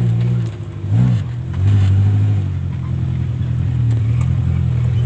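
Off-road vehicle's engine running under load, its pitch dipping and rising again about a second in, then holding steady.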